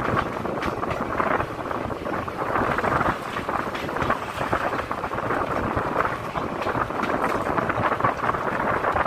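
Indian Railways passenger train running along the track, heard from an open coach doorway: a steady rush of wheel and rail noise dotted with frequent clicks, with wind buffeting the microphone.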